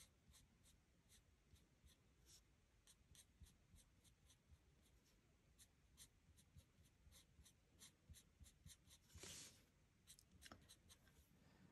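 Faint scratching of a Stampin' Blends alcohol marker's fine tip on cardstock, in many short quick strokes while colouring small leaves, with one longer stroke about nine seconds in.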